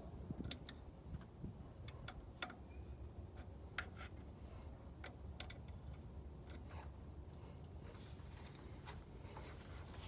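Faint, irregular clicks and taps, about a dozen spread unevenly, over a low steady hum.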